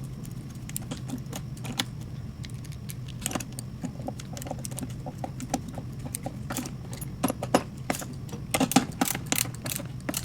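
Ratchet wrench clicking in short irregular runs as the adapter-plate screws are tightened to torque.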